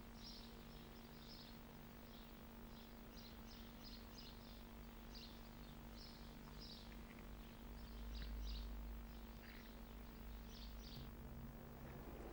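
Faint birds chirping in short repeated bursts over a steady low hum, with a brief low rumble swelling a little past the middle.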